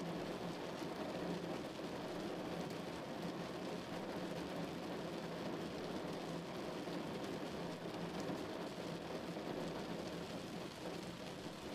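Rain falling on a moving car, heard from inside the cabin, over the steady hiss of tyres on a wet road and engine hum. A steady, even noise with faint scattered drop ticks.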